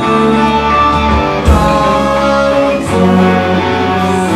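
Punk rock band playing live, with electric guitar and bass guitar over drums and a sharp hit about a second and a half in.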